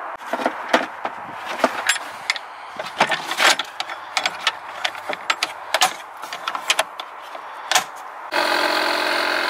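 Plastic clips and lid of an engine air filter housing being unlatched and handled: a quick string of sharp clicks, snaps and knocks. Near the end a portable 12-volt tire inflator starts and runs with a steady, even hum.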